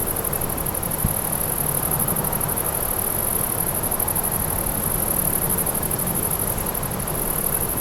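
Grasshoppers singing: a continuous, very high-pitched rapid pulsing chirr that holds steady throughout, over a low rumble.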